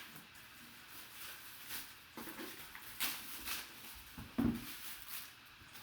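Faint rustling and crinkling of packaging being handled, with a few sharp crinkles about halfway and a soft thump soon after.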